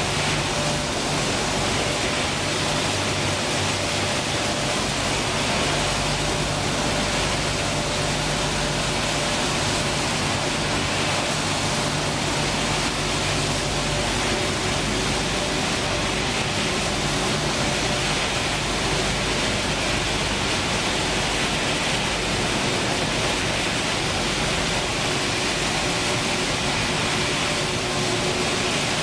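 Dog food production line machinery running in the plant: a steady, dense mechanical noise with faint humming tones, and a low hum that weakens about halfway through.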